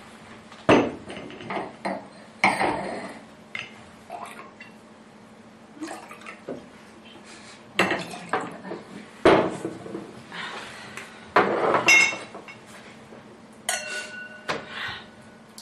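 Wine bottle and wine glasses knocking and clinking on a wooden table as red wine is poured into glasses. Near the end a glass rings out clearly for about a second.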